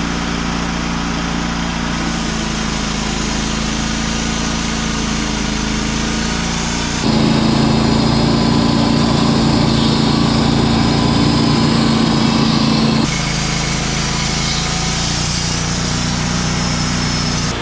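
Wood-Mizer LT35 Hydraulic portable sawmill's engine running steadily, growing louder and harsher for about six seconds in the middle before settling back.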